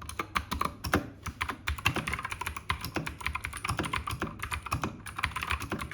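Typing on a Keychron K2 wireless mechanical keyboard: a quick, continuous clatter of key presses, several a second.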